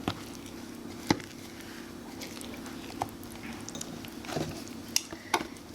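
Spoon working thick batter in a mixing bowl, with about six light knocks and clicks of the spoon against the bowl, over a steady low hum.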